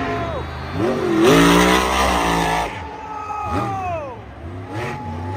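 Monster truck engine revving in several rising and falling sweeps, with a louder, rougher stretch of noise from about one second in.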